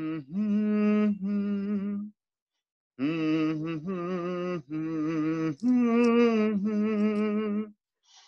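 Voices singing or humming a slow wordless tune in long held notes, some with a slight waver, breaking off for about a second two seconds in and again briefly near the end, heard over a video call.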